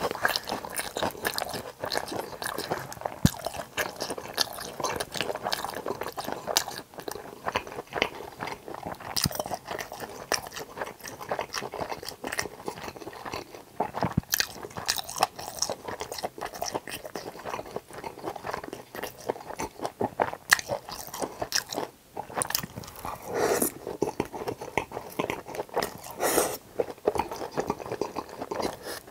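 A person chewing crispy fried pork tangsuyuk in sauce close to the microphone: continuous crunching and chewing with many small crackling bites, a few louder bursts near the end.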